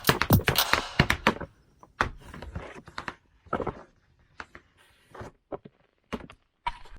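Tap shoes striking a wooden floor: a quick run of taps for about a second and a half, then scattered single taps and knocks with gaps between them.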